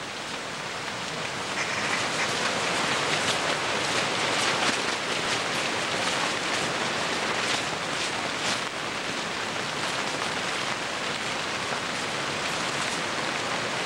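Steady rain falling on a tent, a continuous hiss with a few louder drops standing out now and then.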